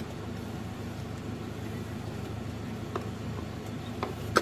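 Steady low hum of a car running, with a few light clicks and a sharper click near the end.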